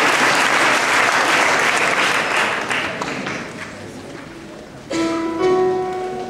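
Audience applauding, the clapping fading away over about four seconds. About five seconds in, a choir comes in on a held chord.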